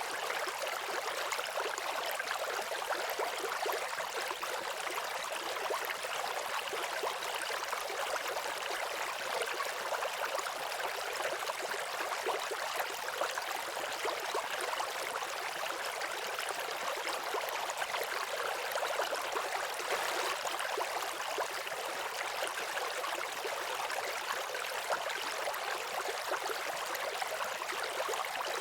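Waterfall: water pouring and splashing in a steady, unbroken rush, mostly high in pitch with little deep rumble.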